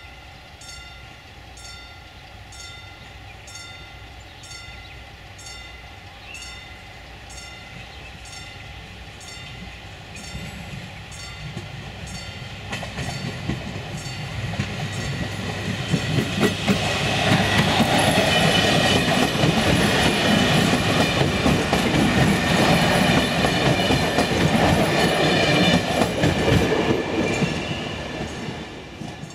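HŽ series 6111 electric multiple unit approaching and passing. It grows louder from about ten seconds in, runs as a loud rumble with rapid clattering of its wheels on the rails for about ten seconds, then fades near the end. Before it arrives, faint regular ticks sound about once a second over steady high tones.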